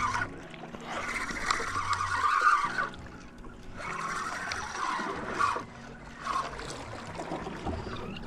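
Spinning reel being cranked in two spells of winding, its gears whirring, with water lapping around the boat.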